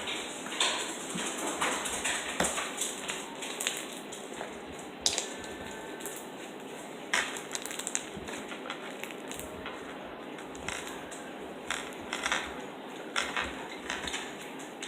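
Slime with beads mixed in being squeezed and worked by hand, giving irregular crunchy crackles and clicks.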